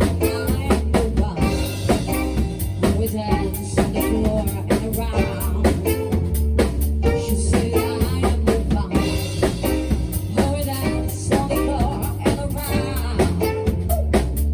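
A band playing: a drum kit beats out a steady rhythm over a heavy bass line, with other pitched instruments on top.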